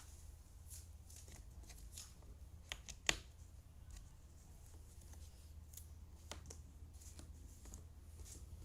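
Jigsaw puzzle pieces being handled and set down: scattered light clicks and taps, the sharpest about three seconds in, over a steady low hum.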